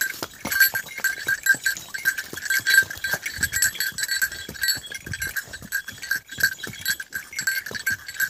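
A bell on the horse's harness jingling in a steady pulse as it walks, over irregular knocks of hooves on the paved trail.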